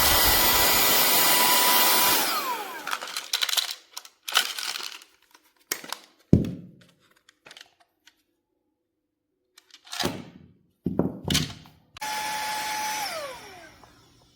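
Cordless handheld vacuum cleaner running with a steady whine, then switched off about two seconds in, its motor pitch falling as it spins down. A few knocks and clunks follow as it is handled, then it runs again briefly near the end and spins down once more.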